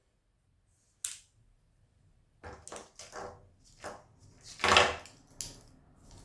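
Handling noises from a hat hanger: a single click about a second in, then rustling and a run of clicks and knocks, loudest near five seconds in.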